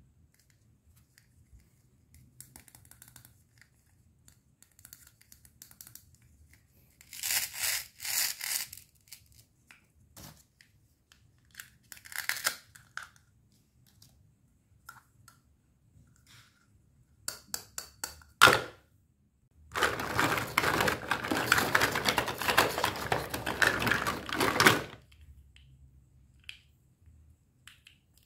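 Plastic toy play-food fruit being handled: short ripping bursts as Velcro-joined halves are pulled apart, a sharp click about two-thirds of the way in, then about five seconds of continuous rustling and scraping of the plastic pieces.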